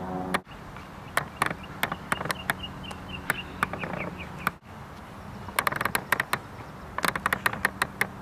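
Outdoor ambience with faint repeated bird chirps and a run of sharp, irregular clicks and taps, several a second in clusters, with abrupt cuts between takes.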